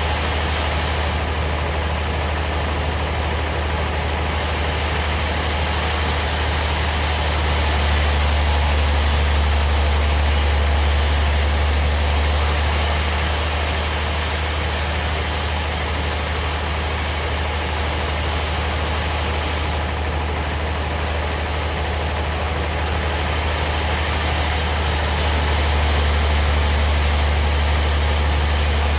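Bandsaw sawmill running with a steady low hum that swells louder twice, about eight seconds in and again near the end.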